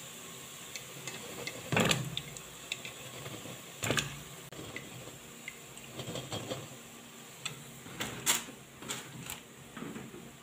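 A wire-mesh skimmer clinking and scraping against the frying pan as fried half cakes are scooped out of hot oil, with irregular knocks, the loudest about two seconds in. The oil sizzles faintly underneath.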